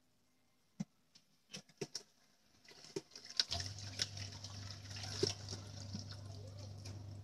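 A few scattered clicks and knocks, then from about halfway through a kitchen tap running into the sink, a steady hiss over a low hum.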